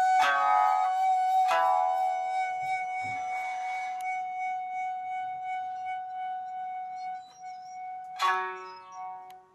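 Nagauta music: a Japanese bamboo flute (fue) holds one long, steady high note while a shamisen strikes a few sharp plucked notes, near the start, about a second and a half in and again near the end, before the sound fades.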